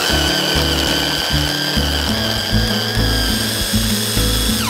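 Electric hand blender running on its chopper bowl attachment, chopping chickpeas into a paste: a steady high motor whine that drops in pitch and stops as it switches off at the end.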